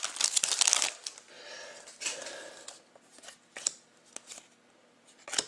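Trading-card pack wrapper crinkling loudly as it is torn open. After about a second it gives way to softer rustling and scattered light clicks as the cards are slid out and handled.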